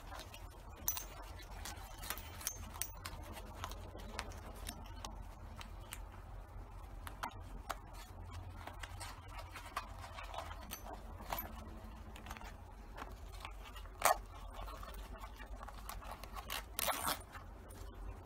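Nylon webbing straps and metal buckles of a Max Vest II body-weight support harness being handled and adjusted: scattered rustles and small clicks, a sharper click about 14 seconds in and a short rasp near the end, over a low steady hum.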